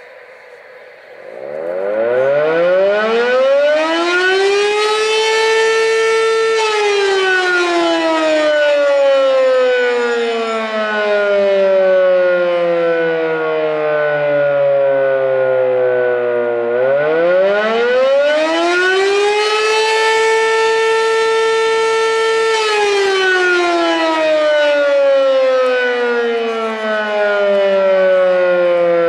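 8-port Model 7 outdoor warning siren sounding the attack signal. It winds up from a low growl to a steady wail, holds, then winds down in a long falling slide before winding up again and falling a second time.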